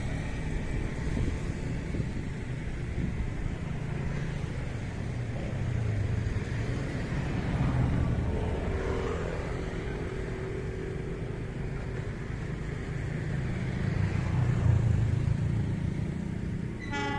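Low, steady engine rumble that swells a little around eight and fifteen seconds in, with a short horn toot right at the end.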